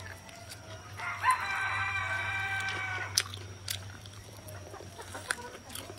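A rooster crowing once in the distance. The long, steady crow starts about a second in and lasts about two seconds.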